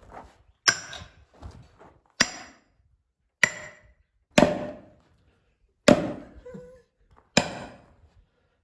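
Sledgehammer striking a steel splitting wedge driven into a large round of firewood: six hard blows, one every second or so, each with a short metallic ring.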